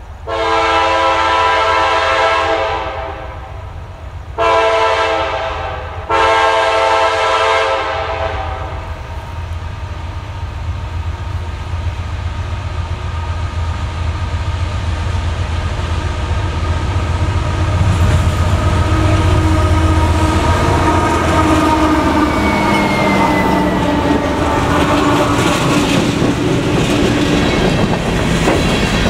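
CSX freight train led by GE diesel locomotives sounding its multi-note air horn three times as it approaches. The engines then build and pass with a heavy drone, followed by open-top hopper cars rolling by with steady clickety-clack wheel noise.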